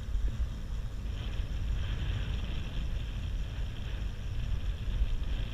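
Wind buffeting the microphone of a camera riding on a moving bicycle: a gusty low rumble, with a hiss above it that swells from about a second in and eases near the end.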